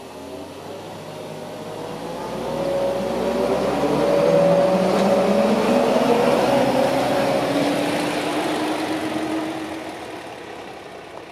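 Yellow Rhaetian Railway track-maintenance rail tractor with a loading crane driving past on the track, its engine running steadily. It grows louder to a peak around the middle and fades away as it moves off.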